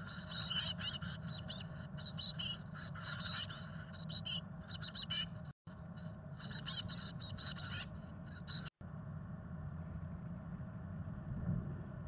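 Chickadee nestlings begging: rapid, high, thin calls from several chicks over a low steady hum. The calls break off briefly twice and stop about two-thirds of the way through, leaving only the hum.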